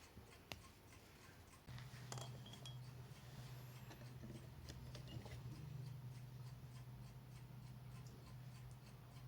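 Faint scattered clicks and clinks, with a low steady hum that comes in about two seconds in.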